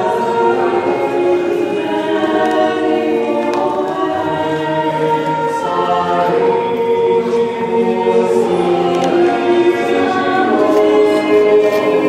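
Mixed choir of men's and women's voices singing unaccompanied, holding sustained chords that change every second or two.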